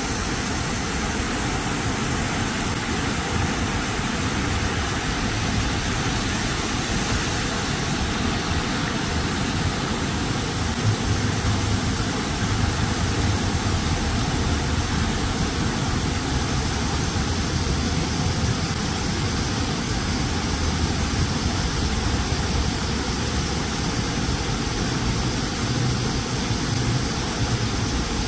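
Ornamental fountain jets splashing steadily into the basin as a constant wash of falling water, with a low rumble of road traffic underneath that grows a little stronger about ten seconds in.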